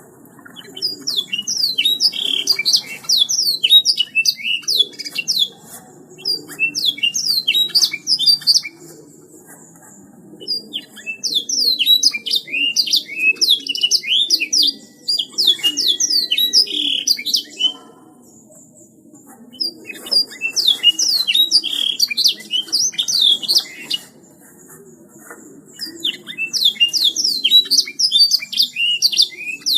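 Domestic canary singing in four long bouts of rapid, high trills and chirps, each several seconds long, with short pauses between them.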